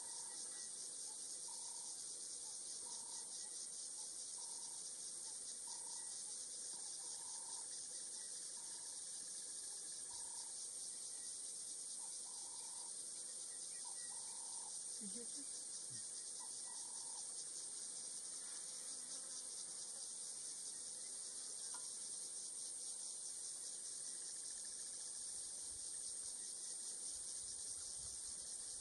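A steady, high-pitched insect chorus with a fine rapid pulse. Beneath it, a short mid-pitched call repeats every second or so through the first half, then stops.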